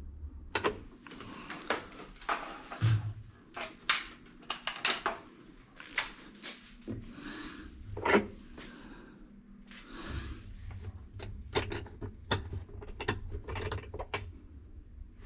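A wrench clinking and knocking on the 38 mm nut and shaft at the bottom of a Sanlux top-loading washing machine's tub as the nut is worked loose: irregular sharp metal clicks and knocks, the loudest about eight seconds in, over a low rumble of handling.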